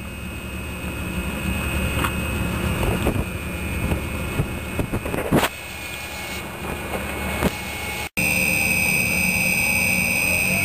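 Steady machine hum with a high whine, broken by a few short knocks and rattles. About eight seconds in the sound cuts off for an instant and comes back as a louder, steadier hum with a stronger high-pitched whine.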